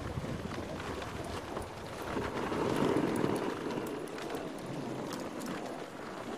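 Dog sled runners sliding over snow, a steady noisy rush with wind on the microphone, swelling louder for about a second midway.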